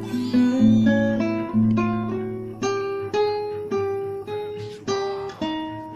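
Acoustic guitar music: single plucked notes, each ringing and fading, played in a slow melody that climbs in the first second or so.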